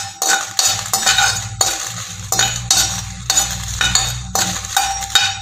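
A metal spatula scrapes dried red chillies around a large aluminium kadai as they roast, in quick repeated strokes of about two a second.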